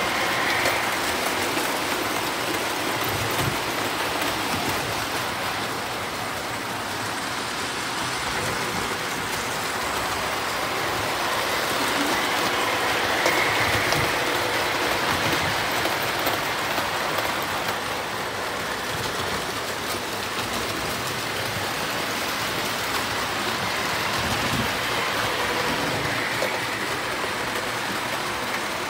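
Several model electric trains, standard and O gauge, running on metal track loops: a steady clattering hum of wheels and motors with fine clicking from the rails, swelling louder at intervals as a train passes close.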